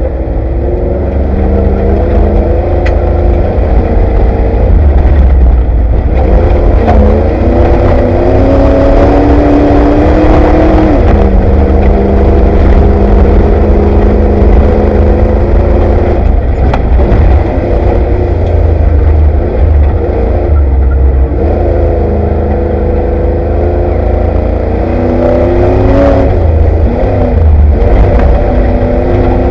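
Off-road race Ford Bronco's engine heard from inside the cab at speed. Its pitch climbs, holds and drops several times as the throttle opens and closes. Under it there is a heavy low rumble, with a few sharp knocks from the truck working over rough desert ground.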